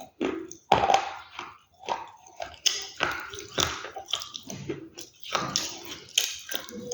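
Close-miked ASMR chewing and biting of crunchy food: irregular crunches one after another, each a sharp crackle followed by softer munching.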